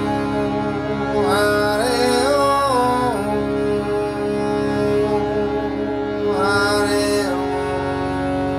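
A man singing a slow kirtan chant over a steady held drone: two sung phrases, each gliding between notes, about a second in and again near the end, with the drone sounding on underneath.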